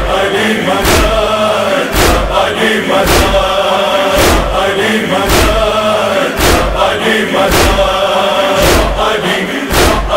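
A chorus of voices chanting a Shia noha refrain in long held notes over a steady heavy beat, about one thump a second.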